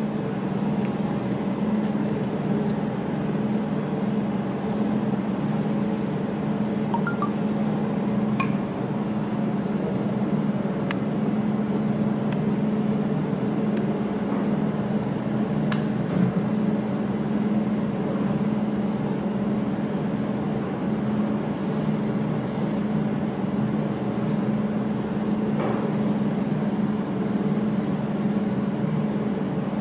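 Desktop jewelry fiber laser welding machine running with a steady hum, and a few sharp ticks scattered through it.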